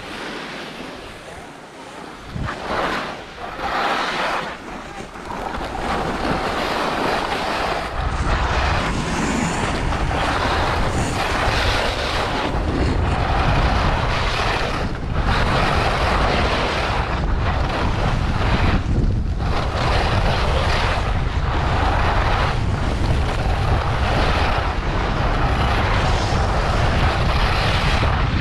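Wind buffeting a GoPro Hero8's microphone on a fast-moving skier, over the hiss and scrape of skis carving turns on packed snow in surges every second or two. The wind rumble grows much louder as speed builds, from about a quarter of the way in.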